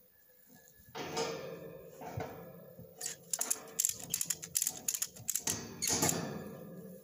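Ratchet strap being tightened: the webbing is drawn through the buckle twice, then the ratchet handle is worked in a quick run of sharp clicks from about three seconds in, with another pull of webbing near the end. The strap is cinching two steel tower sections that would not slide together by hand.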